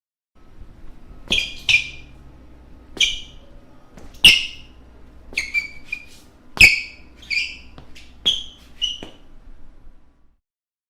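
Basketball shoe soles squeaking on a hardwood court floor: about ten short, sharp, high-pitched squeaks at irregular intervals, some in quick pairs. Faint shuffling runs underneath.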